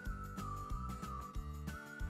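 Background music with a steady beat and bass notes under one high held melody line that bends down in pitch and comes back up near the end.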